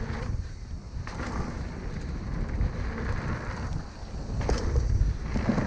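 Wind rumbling over the microphone with the rolling noise of a mountain bike riding down a dirt trail, and a few sharp rattles from the bike, the clearest about four and a half seconds in.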